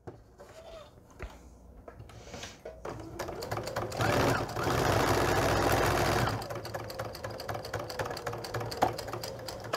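Domestic electric sewing machine stitching a seam through pinned cotton quilt pieces. It starts about three seconds in, runs fastest and loudest for about two seconds, then carries on more slowly.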